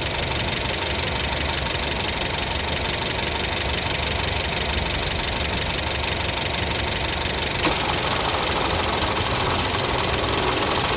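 2012 Honda Civic EX's 1.8-litre four-cylinder engine idling steadily. About three-quarters of the way through, a sharp click as the A/C comes on and the compressor clutch engages, after which the faint extra noise that comes with the A/C on joins the idle.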